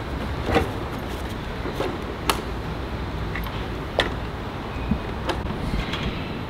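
A handful of sharp clicks and clunks from a scooter's seat, latch and helmet being handled, about a second or two apart, over a steady low rumble of street noise. The scooter's engine is not running.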